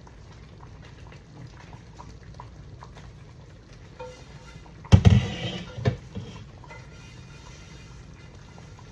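Cookware clattering in a kitchen: a loud knock about five seconds in, with a short ring after it, and a smaller knock a second later, over a low, steady simmer.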